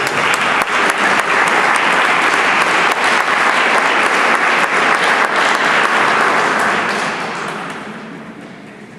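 Audience applauding: dense clapping that starts at once, holds steady, then dies away about seven seconds in.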